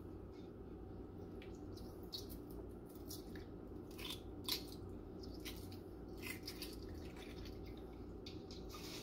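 Hard-boiled eggshells crackling and flaking off under the fingers in a stainless-steel bowl of cold water, with small drips and splashes. Scattered soft clicks over a steady low hum, the sharpest about four and a half seconds in.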